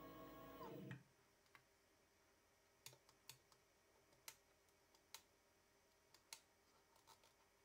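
Stepper motor of a four-jaw rotary axis whining steadily at 55 RPM, then falling in pitch as it decelerates and stopping about a second in. Then a few faint clicks from the control box's buttons and acceleration thumbwheel switch being set.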